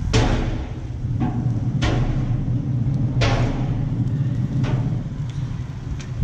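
Raw chicken breasts sizzling on the hot grates of a pellet grill at about 375 °F, in several short hissing bursts as pieces are laid down, each fading quickly. A steady low rumble runs underneath.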